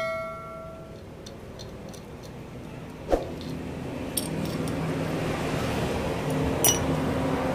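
A metal part rings out and fades over the first second, then a single sharp knock and a few light metallic clinks of tools and engine parts. From about halfway a low steady mechanical hum grows louder underneath.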